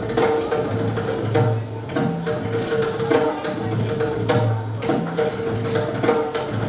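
Dance music with a regular drum beat over a steady held note.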